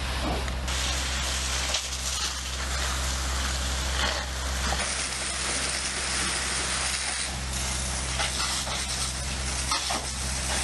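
Fire hose spraying a jet of water onto smouldering construction debris: a steady rushing noise, with a low steady engine hum underneath. The sound changes abruptly a few times.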